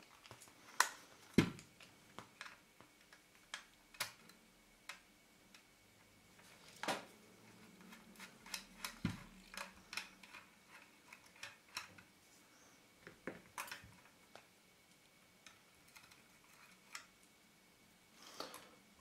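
Faint, irregular clicks and light taps of a small screwdriver working tiny screws out of a Canon EOS 450D camera body, with an occasional louder tick.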